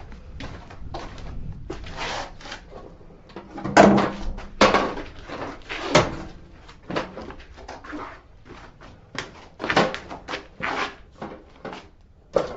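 Irregular knocks, clicks and rattles of hard objects being handled and set down, with a few louder bangs about four, six and ten seconds in.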